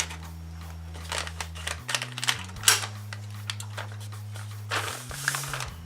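A blade shaving down a pencil: a run of short scratchy clicks and scrapes, with two longer scrapes, one about halfway and one near the end.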